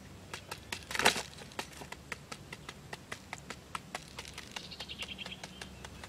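A quail pecking at bait on a cardboard platform: a quick, irregular run of sharp taps, about four or five a second, with one louder scuffling knock about a second in. A brief faint high trill comes about two-thirds through.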